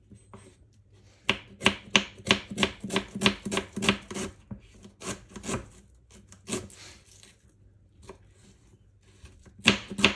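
Kitchen knife slicing onions on a cutting board: a run of rhythmic cuts, about three or four a second, a pause with a few scattered cuts, then a quicker run near the end.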